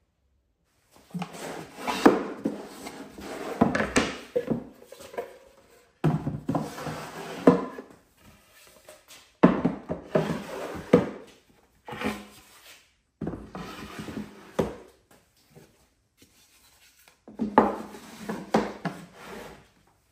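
3-ply plywood nesting apple boxes being slid into one another, wood rubbing and scraping on wood with knocks as each box seats. It comes in five bouts of about two seconds each.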